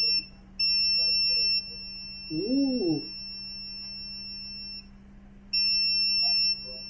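Digital multimeter's continuity beeper sounding a steady high tone in three stretches: a short one at the start, a long one of about four seconds, and another starting near the end. The probes are finding continuity on a line that is suspected of being shorted to ground.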